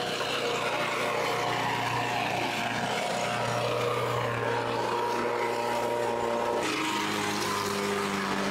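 Walk-behind lawn mower motor running steadily while mowing grass. Its note changes abruptly about two-thirds of the way through.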